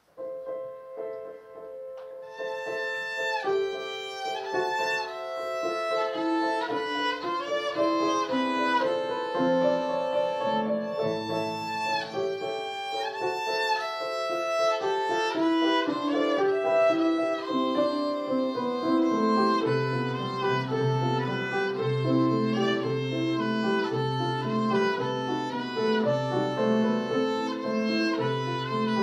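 A violin played by a young student, with grand piano accompaniment, in a melodic classical piece. About two-thirds of the way in, a steady repeated low note pattern comes in under the melody.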